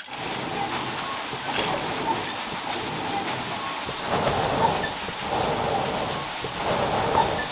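Charcoal fire in a clay forge burning under an air blast from its bellows: a steady rushing roar with crackle, swelling about four seconds in and again near the end.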